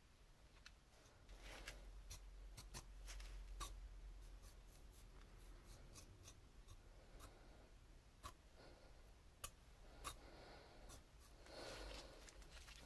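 Faint scraping and scattered light clicks of a rusty old pair of scissors being opened and closed in gloved hands, with a couple of sharper clicks about two-thirds of the way in.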